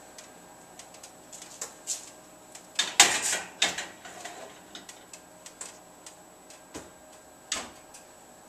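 Light clicks and knocks of bakeware and utensils being handled, with a louder clatter and scrape about three seconds in.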